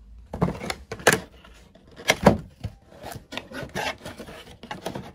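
Cardboard doll box being opened by hand: the end flap and inner cardboard insert slide and rub, with irregular scraping and a few sharper knocks, the loudest about one and two seconds in.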